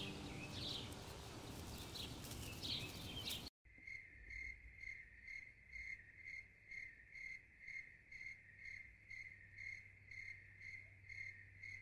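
A noisy wash left over from music cuts off abruptly about three and a half seconds in. Then a cricket chirps steadily, about two high chirps a second.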